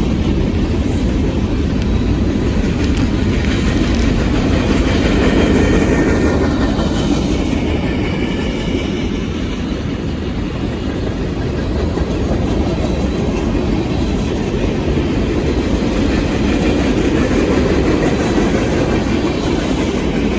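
Union Pacific manifest freight train's cars rolling past steadily on the rails, with a faint falling whine a few seconds in.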